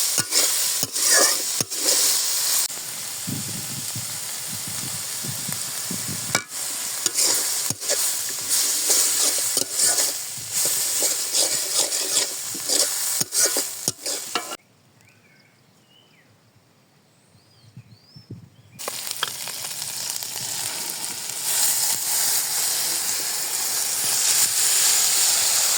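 Food sizzling in a hot pan while it is stirred, the steady frying hiss broken by scraping strokes of the spatula. A little past halfway it drops to near quiet for about four seconds, then the sizzling resumes.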